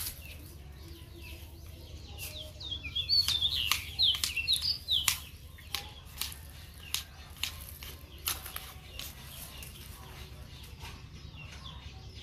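A bird chirping in a quick series of short falling notes for a few seconds, with scattered light clicks and taps from a fishing rod being handled.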